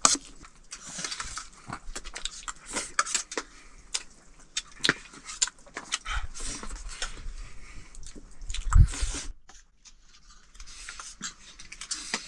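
Close-up eating sounds: wet chewing and lip smacks, with clinks of a spoon on a metal plate, coming as many short irregular clicks, and one louder thump about three quarters of the way through.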